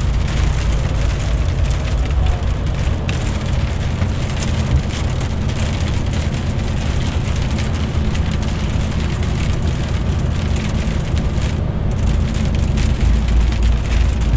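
Inside a DAF truck's cab on a slushy road: a steady engine drone with tyre and road noise, and sleet and rain hitting the windscreen in many small ticks.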